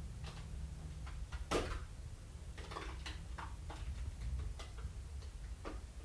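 Scattered, irregularly spaced light clicks and taps over a low steady hum, the loudest about one and a half seconds in: small metal pieces being handled as flattened cans are fitted into a rear wheel hub.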